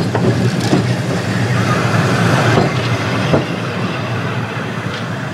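Leeds double-deck electric tram No. 180 running past on street track, its wheels clicking a few times over rail joints and points, over a steady low hum.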